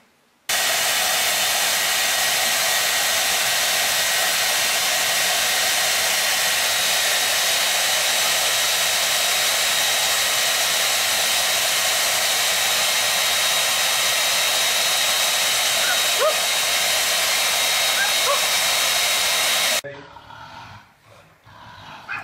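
Handheld hair dryer blowing steadily with an even whoosh and a faint high whine. It switches on about half a second in and cuts off suddenly about two seconds before the end.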